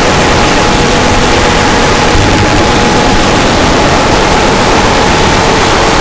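Harsh noise music: a loud, unbroken wall of static-like noise with a faint steady high tone held under it.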